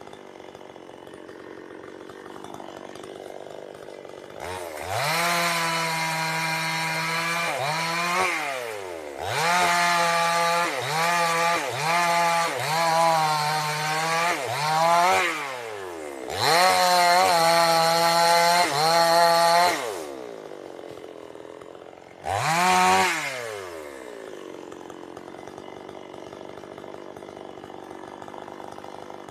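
Two-stroke chainsaw idling, then revved to full speed in three long bursts with idling between; in the middle burst the pitch dips and recovers several times. A short blip of throttle follows before it settles back to idle.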